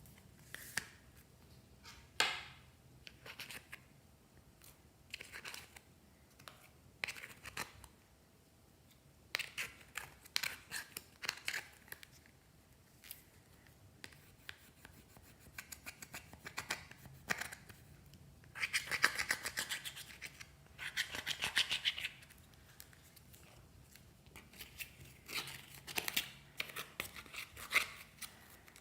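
Glossy slime being squished and worked by hand: irregular runs of sticky clicks and crackles, with a long dense run of rapid clicking past the middle.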